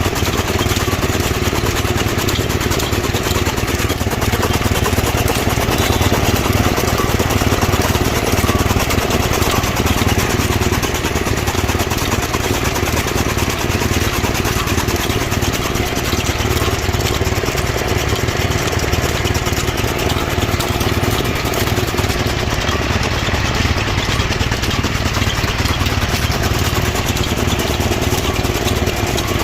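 Chaff cutter machine running steadily, chopping fodder.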